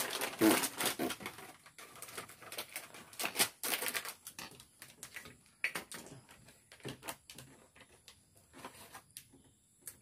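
Close handling noise of wires being twisted together by hand: irregular rustling, crinkling and small clicks, busiest in the first few seconds and thinning out toward the end.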